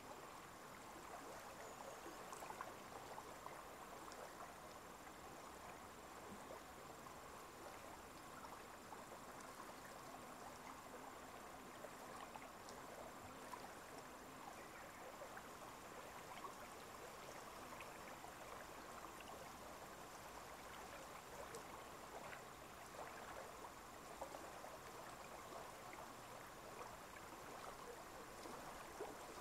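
Faint, steady trickle of running water with small flickering splashes, and a thin, high, steady tone throughout.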